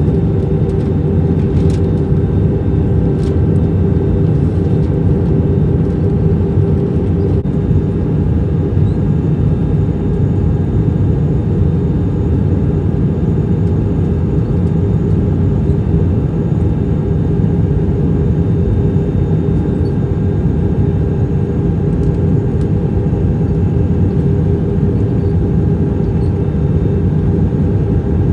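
Steady drone of a Lufthansa Airbus A321 in flight: engine noise and rushing air, with a constant hum over a low rumble that does not change.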